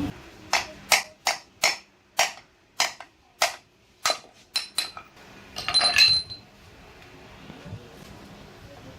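About ten sharp knocks, roughly two a second, striking a pedestal fan motor's end cover to drive out its worn front ball bearing, followed by a short metallic clatter and ring as the bearing comes free.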